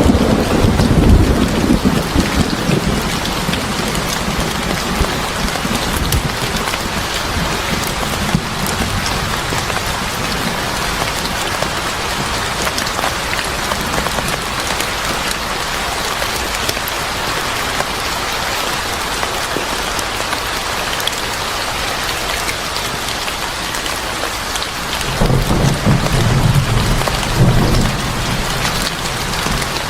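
Steady rain falling on a surface, with a low rumble of thunder that fades over the first few seconds and another rumble near the end.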